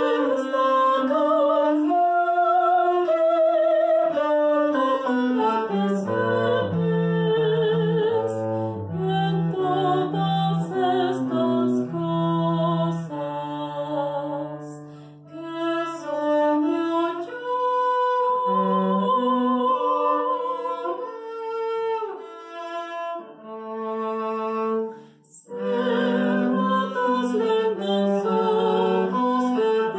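Cello played with the bow in a slow melody with vibrato, including a long low held note midway and a short break near the end.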